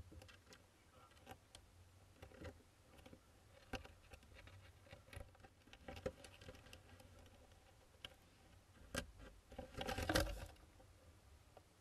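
Hoopoe chicks scratching and shuffling on the wooden floor and walls of a nest box: faint, irregular scratches and taps, with a louder flurry of scrabbling about ten seconds in.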